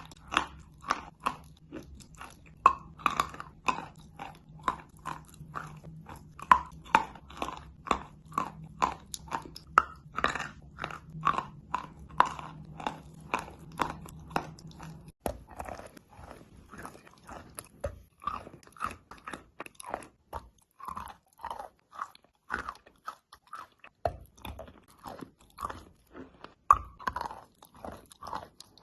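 Close-miked chewing of eating chalk: dry, sharp crunches, about two to three a second, as pieces are bitten and ground between the teeth. A low steady hum sits under the first half and stops about halfway.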